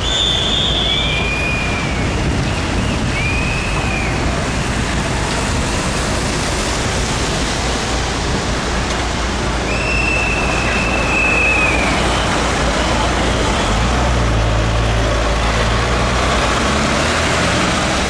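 Motorcade vehicles passing close on a wet road: steady traffic noise with tyres hissing on the wet surface, and a vehicle engine rumbling close by in the last few seconds. Four short high-pitched tones sound over it, three in the first four seconds and a longer one of about two seconds some ten seconds in.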